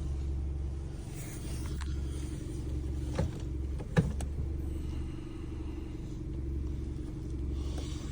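Car engine idling with a steady low rumble and hum. Two short sharp clicks come about three and four seconds in.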